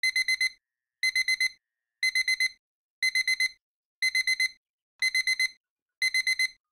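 A phone alarm beeping: groups of four quick, high beeps, one group about every second.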